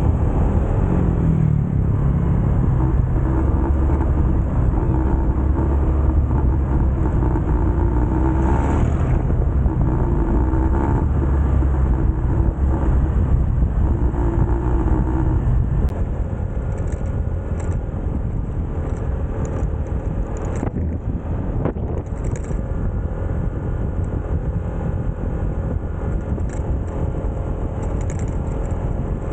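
Motorcycle engine running while riding, over a heavy rumble of wind and road noise. The engine note eases and drops a little about halfway through.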